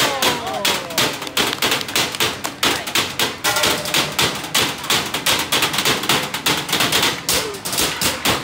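Fast trash-can drumming: two drummers beating sticks on galvanized metal trash cans and yellow buckets in a rapid, dense run of strikes.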